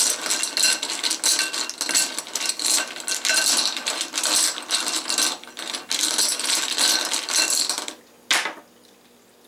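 Rune pieces being shaken and stirred in a bowl: a dense, continuous rattling clatter for about eight seconds, then a single sharp click.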